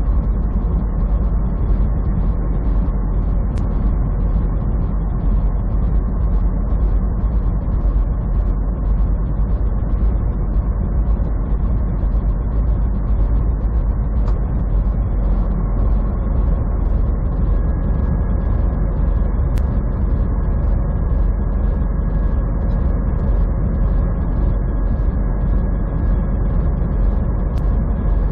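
Semi truck cruising on the interstate, heard from inside the cab: a steady low engine drone with road noise. A faint steady high tone joins about two-thirds of the way in.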